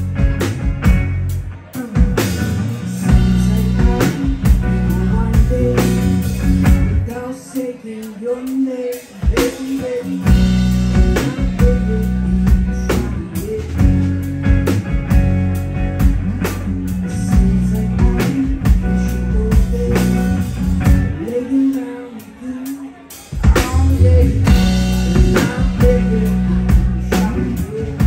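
A live rock trio plays: electric guitar, bass guitar and drum kit, with sung vocals. Twice the bass and drums drop out for a couple of seconds, about seven seconds in and again about twenty-one seconds in, leaving guitar and voice before the full band comes back.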